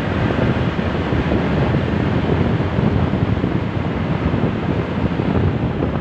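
Wind buffeting the microphone of a motorcycle riding at speed, a steady low-heavy rush that covers the engine and road noise.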